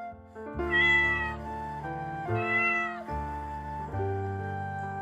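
A cat meowing twice, each call rising then falling in pitch, over background music.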